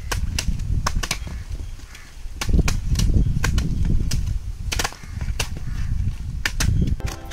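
Knives chopping into bunches of palmyra ice apples, several people at once: sharp, irregular knocks about two to three a second over a low rumble. Music comes in just before the end.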